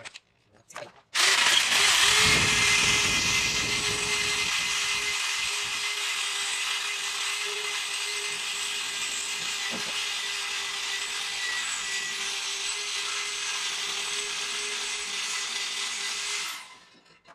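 Electric drill boring into a broken metal bolt in a scooter engine casing: a steady run of the drill motor and the bit grinding through the metal. It starts about a second in, is loudest at first, and stops shortly before the end.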